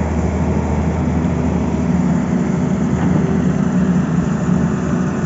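Tata Hitachi crawler excavator's diesel engine running steadily as the machine works, a low, even drone.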